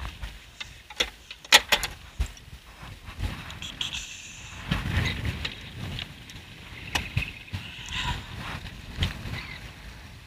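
Small sailboat under sail in a choppy sea: a rushing of wind and water along the hull that rises and falls, with several sharp knocks in the first two seconds.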